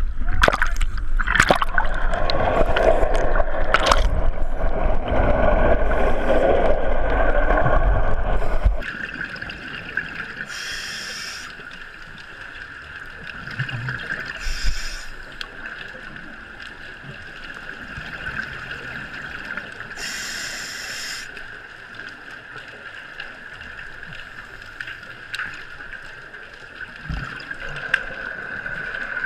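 Seawater slapping and splashing around a camera at the surface, then about nine seconds in it goes under and the sound drops suddenly to a muffled underwater hush with a steady high hum. A few short hisses break through: scuba divers' exhaust bubbles.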